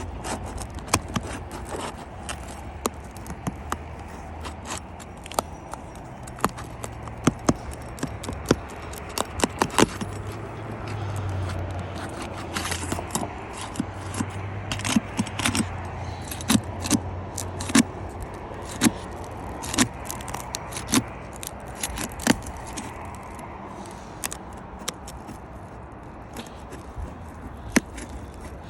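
Asphalt roof shingles being pried up and unsealed, with irregular sharp clicks, snaps and scraping as the sealant strips break loose.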